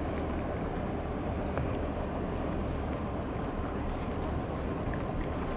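Cruise ferry Silja Serenade passing close by: a steady low rumble with an even hiss over it.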